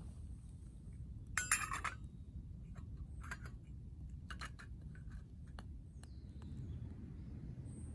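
Camp cookware clinking: a short cluster of ringing clinks about a second and a half in, then a few light single taps, over a steady low outdoor rumble.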